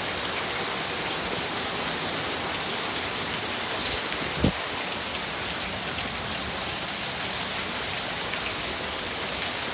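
Very heavy rain pouring down in a steady, loud downpour. A single soft knock sounds about halfway through.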